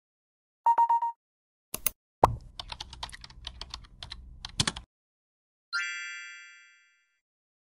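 Edited title sound effects: a short electronic beep, then a run of keyboard-typing clicks for about two and a half seconds, followed by a bright chime that rings out and fades.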